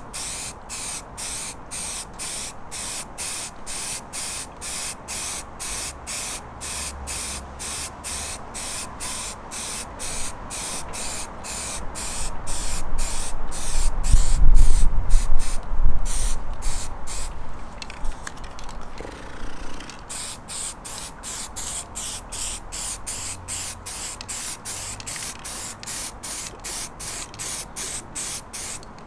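Aerosol spray paint can hissing in short pulsed bursts, two or three a second, as a coat of primer is sprayed onto a plastic grille. Midway a low rumble swells for a few seconds, louder than the spray, then fades.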